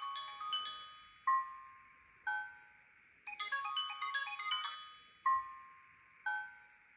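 Ringtone playing from a Siemens Xelibri X5 mobile phone: a quick run of bright notes, then two single notes about a second apart, each note fading away. The phrase plays twice.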